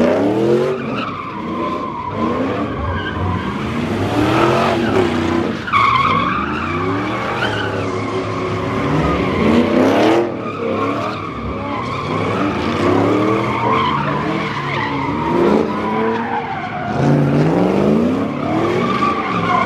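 Pickup truck engine revving hard again and again, each rev rising in pitch, while its tyres squeal steadily in a burnout, spinning through clouds of tyre smoke.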